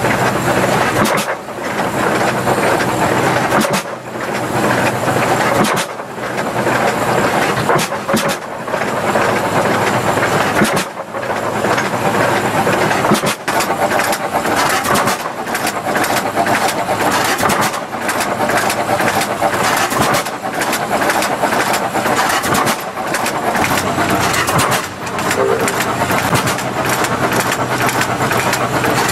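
Vintage Hart-Parr tractor engine running under load, driving a threshing machine by a flat belt, with the thresher's steady rattle and hum. The sound dips briefly every two to three seconds.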